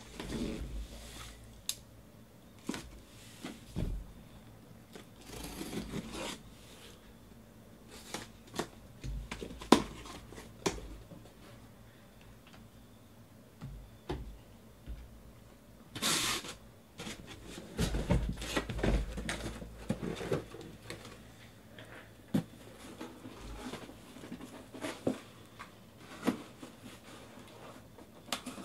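Cardboard case being opened and unpacked by hand: scattered knocks, scrapes and rustles as the flaps are pulled back and shrink-wrapped card boxes are slid out and set down, with one louder scraping tear about halfway through.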